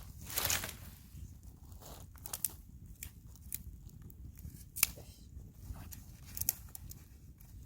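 Dry pine wood snapping and crackling in scattered sharp cracks, with a rustling sound about half a second in; one snap near the middle is the loudest.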